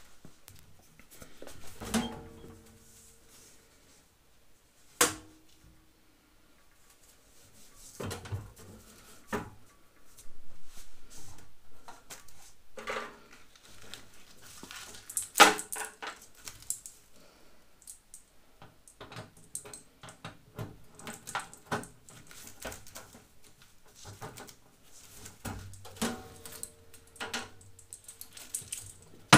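Intermittent metal clicks, clinks and knocks from handling a steel rolling tool cart: a key worked in the top lid's lock, and the lid lifted near the end.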